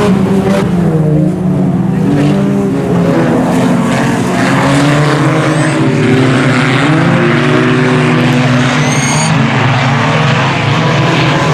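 Pack of IMCA Sport Compact race cars at speed, several four-cylinder engines running at once, their pitches rising and falling as the cars go through the turns.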